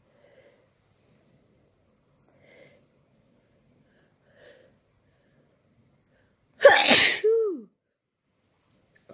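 A single loud human sneeze about two-thirds of the way in, ending in a voiced trail that falls in pitch. A few faint short sounds come before it.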